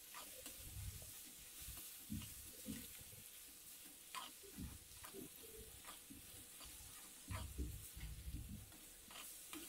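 Sliced onions and cumin seeds frying faintly in a kadhai, a spatula stirring and scraping them against the pan in uneven strokes.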